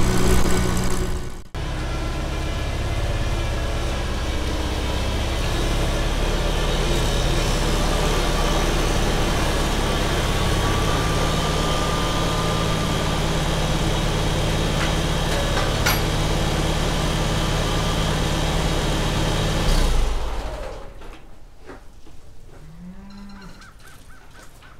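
Farmall Super C's four-cylinder gasoline engine running, first underway on the road, then after a sudden cut idling steadily for about eighteen seconds until it is shut off. Faint knocks and a short squeak follow once the engine stops.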